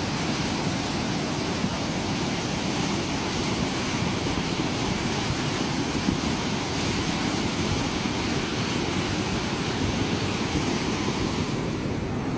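Steady rush of a muddy flash-flood surge pouring down a dry riverbed, with wind buffeting the microphone. Near the end the high hiss drops away and the sound turns duller.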